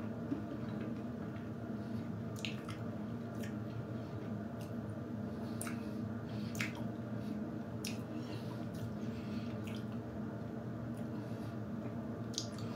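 Someone chewing a mouthful of hazelnut and chocolate close to the microphone: scattered small crunches and wet mouth sounds over a steady low hum.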